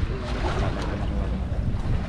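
Wind buffeting the microphone: a steady, gusty low rumble, with faint voices under it during the first second.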